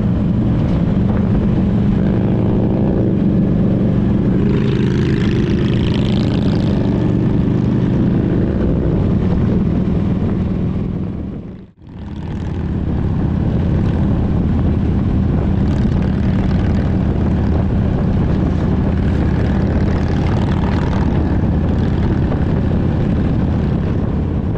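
Motorcycle engine running steadily while under way, a continuous low drone. About halfway through it drops out abruptly and fades back in.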